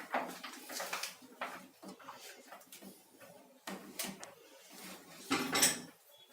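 Hand tools and metal pipe fittings being handled during plumbing work: scattered clinks and knocks, with a louder clatter about five seconds in.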